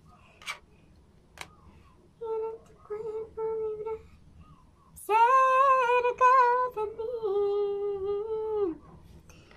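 A high voice humming a tune: three short notes, then a longer, louder phrase held on one pitch that steps down partway through. A couple of sharp clicks come in the first two seconds.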